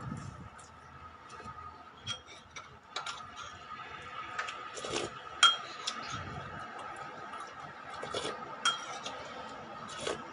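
Cutlery and dishes clinking: a dozen or so scattered sharp clinks, the loudest about five seconds in, over a faint steady whine.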